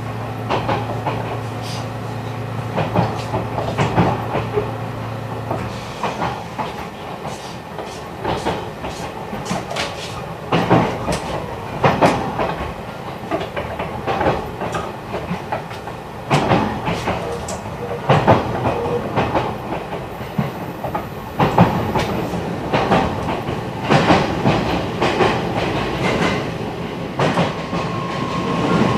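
JR East E129 series electric multiple unit running on the line, heard from aboard the motor car. Its wheels click irregularly over rail joints. A steady low hum fades out about six seconds in, and a steady whine, typical of its Toyo IGBT inverter, sets in near the end.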